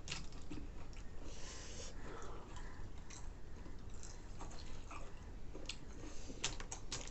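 Close-up chewing and eating sounds: soft mouth noises with many small, sharp crunchy clicks, coming thicker near the end.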